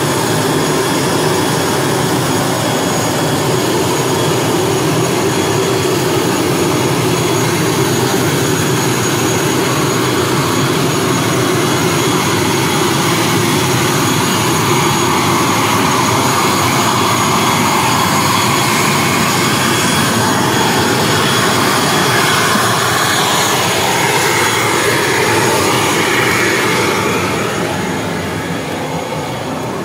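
Turboprop airliner engine running on the ground: a loud, steady roar with a thin high whine over it. It grows quieter and duller near the end, heard from inside the aircraft's doorway.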